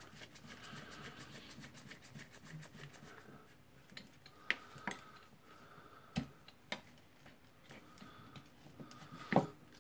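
Faint, scattered clicks and light taps of a small screwdriver and metal parts as screws are undone from a Milwaukee M18 drill's metal gear assembly, with a few sharper clicks in the second half.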